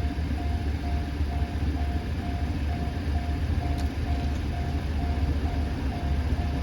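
A level-crossing warning bell ringing in an even beat, about two strikes a second, over the low rumble of a freight train hauled by an EF210 electric locomotive as it approaches.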